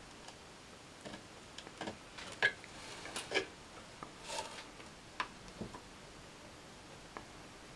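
Faint, irregular clicks and ticks of a soldering iron tip and pliers working a component lead on a circuit board while the joint is heated to desolder it. There are about a dozen small clicks, the loudest about two and a half seconds in.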